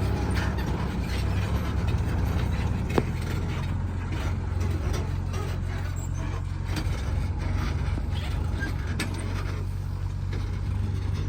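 Heavy diesel engine running steadily with a deep, even drone, with one sharp click about three seconds in.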